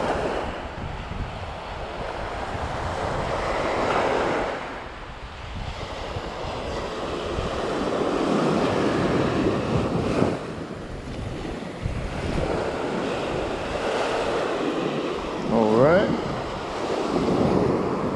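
Small surf breaking and washing up the sand in slow swells, with wind buffeting the microphone. A short rising squeal near the end.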